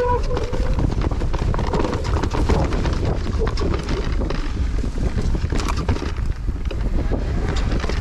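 Wind buffeting the microphone while a mountain bike rolls fast down rough dirt singletrack, its tyres rumbling over stones and roots, with many small rattles and knocks from the bike.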